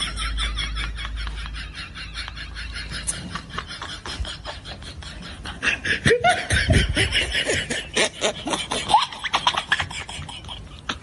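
Hearty human laughter in fast, rhythmic repeated pulses, growing louder about six seconds in.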